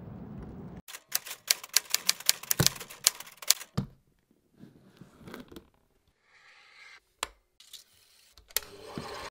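Sharp mechanical clicks and clacks of a vintage film projector and its case being handled: a rapid run of them over the first few seconds, then a few sparse, softer sounds and one loud click. Near the end a steady whir sets in.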